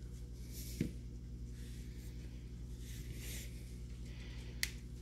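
Small steel revolver parts being handled and fitted together: a soft click about a second in and a sharper, brief click near the end, over a steady low hum.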